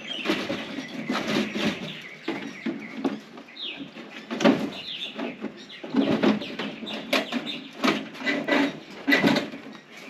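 Wire rabbit cage rattling and clinking in irregular bursts as it is handled, with a bird chirping in the background.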